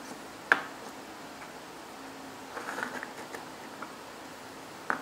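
Small plastic speed-stacking cups clacking as they are set down on a wooden table and pulled apart from a stack: a sharp clack about half a second in, a short run of light clatters around three seconds, and another sharp clack near the end.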